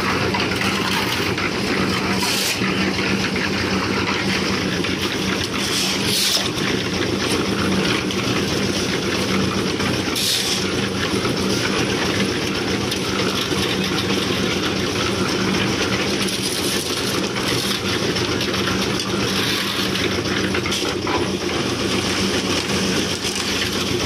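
Portable drum concrete mixer running steadily: its engine hums while the turning drum churns gravel and wet concrete. A few short clinks and scrapes of shovels against iron pans sound over it.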